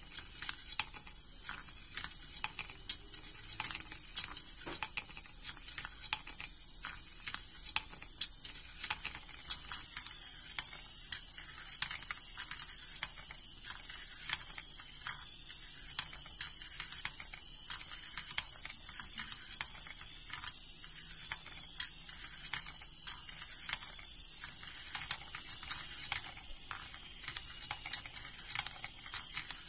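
Small homemade wooden marble machine running: its geared DC motor keeps up a steady high hiss while the mechanism gives a continual clatter of irregular sharp clicks, several a second. The motor sound grows a little louder near the end.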